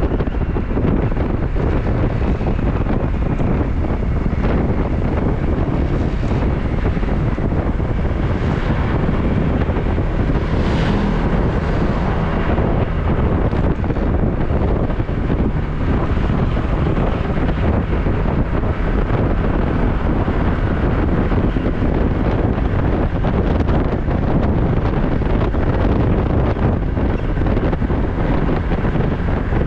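Wind rushing and buffeting on the microphone of a camera riding on a moving motorcycle, steady throughout with a heavy low rumble beneath.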